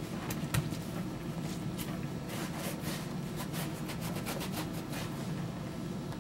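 Hands rubbing and handling damp leather, a scatter of faint soft clicks and rubbing noises with a slightly louder tap about half a second in, over a steady low hum.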